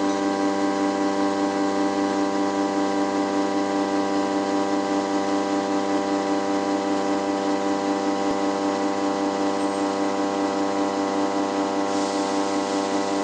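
CNC milling machine running: a steady pitched hum with many overtones over a hiss of machine noise. A brighter hiss joins about twelve seconds in.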